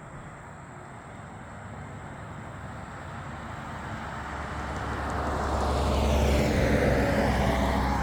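A road vehicle passing by, its engine and tyre noise building steadily and peaking about six to seven seconds in, then dropping in pitch as it goes past.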